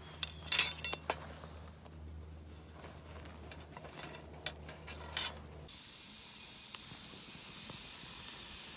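Sharp clicks and clatter of fire-lighting gear being handled, with a few more clicks about five seconds in. From about six seconds in, a steady hiss as twig kindling burns in a stainless steel fire stand.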